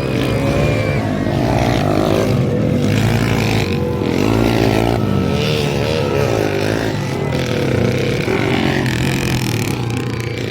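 Several motocross dirt bikes running together, their engines revving up and down with pitches that overlap and glide as the bikes ride the track.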